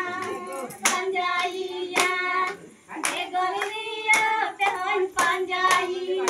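A group of women singing together, with sharp hand claps about once a second keeping time.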